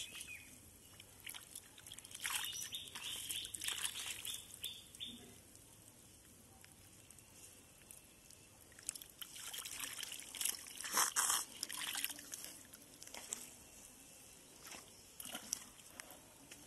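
Wet mud and shallow water squelching and splashing as bare hands dig and scoop through the muck, in irregular bursts with a quieter stretch in the middle.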